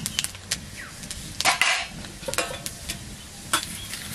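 Cumin seeds sizzling in hot mustard oil in a steel kadai, with a metal ladle scraping and knocking against the pan as they are stirred.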